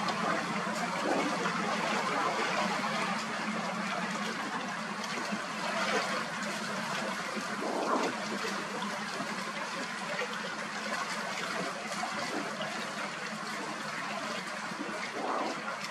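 Steady rushing outdoor noise, swelling briefly about eight seconds in and again near the end.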